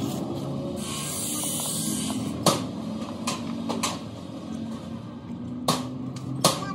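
Sharp metallic clicks of small steel bolts and engine parts being handled and set against a tractor engine's metal housing, three of them, over a steady low background hum.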